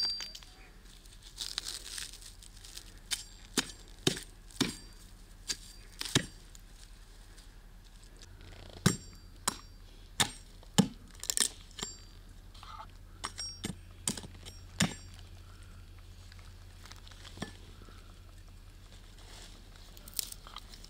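Kitchen utensils and dishes clinking and knocking during food preparation: scattered sharp strikes, some with a brief ring, bunched in the middle and sparse toward the end.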